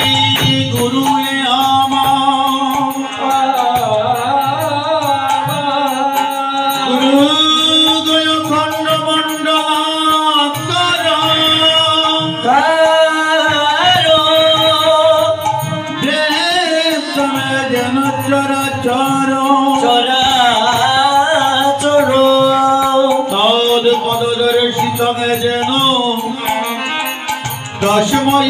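Male kirtan singer holding long, wavering, gliding vocal lines without clear words, accompanied by a hand drum and small cymbals.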